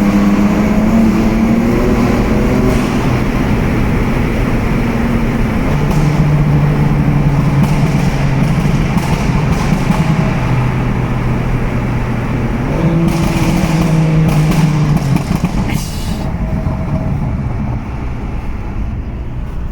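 Tuned BMW M3 engine and exhaust in a tunnel: the engine pulls and eases off, its pitch stepping down and then climbing again, with clusters of sharp exhaust pops and crackles at several points.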